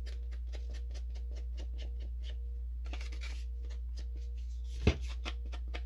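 Rapid, even dabbing strokes of an ink applicator on card, about five a second, as ink is worked over the paper, with a short pause near the middle. A single knock about five seconds in, the loudest sound, as something is set down on the table.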